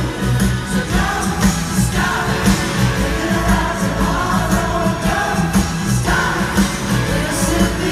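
Live rock band playing at full volume, with keyboards, electric guitars, bass and drums under lead and backing vocals. It is heard from among the audience in a large hall, so the sound is loud and reverberant.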